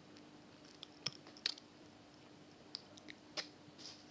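Faint scattered clicks and small taps, four or so at irregular moments, over a faint steady hum.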